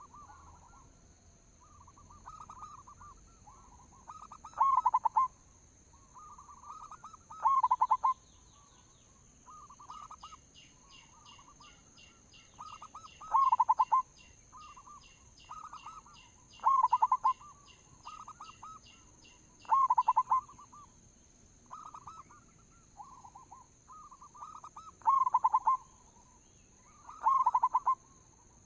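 Zebra doves (perkutut) cooing: repeated short, trilling coo phrases every two to three seconds, some loud and close, others softer in between. A fast, high ticking runs through the middle, with a thin steady high whine throughout.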